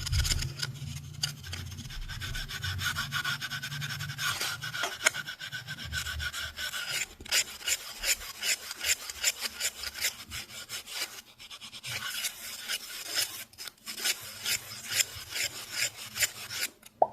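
Fast, aggressive scratching close to the microphone: rapid rasping strokes with two brief pauses in the second half.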